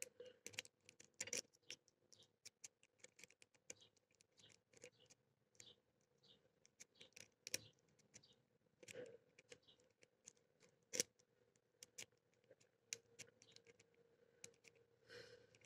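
Faint, irregular small clicks and scratches of a lock pick working the pin stack inside an old Titan padlock's keyway, with a few slightly louder clicks scattered through.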